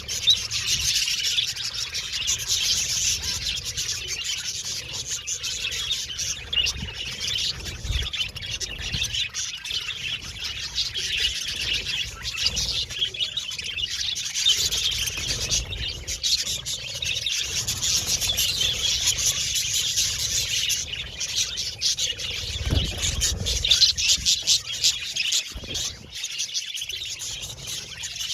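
A flock of budgerigars chattering and chirping continuously, many birds at once, with a steady dense warble of short high chirps.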